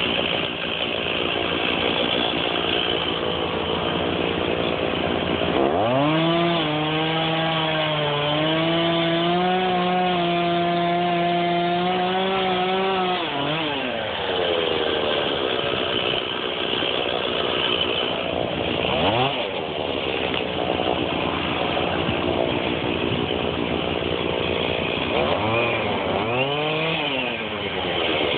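Stihl chainsaw running and cutting wood. From about six to thirteen seconds in it holds a steady high pitch. Near the middle and again near the end the revs rise and fall briefly.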